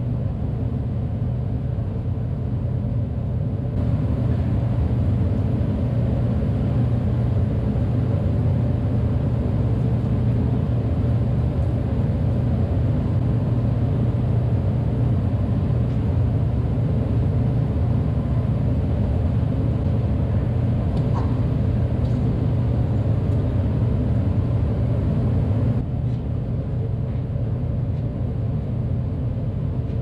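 Milking parlour machinery running with a steady low hum while cows are being milked.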